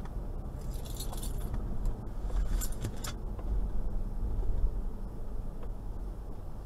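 Low rumble of a Toyota Land Cruiser Prado 120 driving slowly, heard inside the cabin, with two short bouts of light metallic jingling in the first three seconds.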